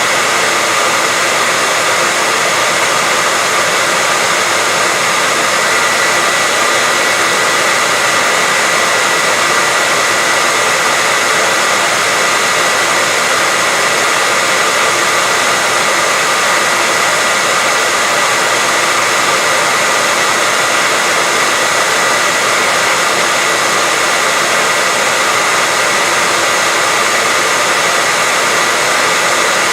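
Steady white noise: an even, unchanging hiss with a faint steady whine running through it.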